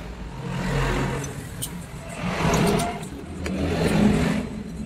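Motor vehicle engines running and revving, their sound swelling and fading every second or two, with a few light metallic clicks from a hand tool working bolts on the engine casing.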